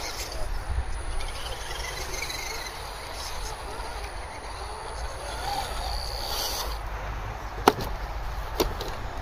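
Steady outdoor background rumble and hiss, with one sharp knock about three-quarters of the way through and a fainter one about a second later.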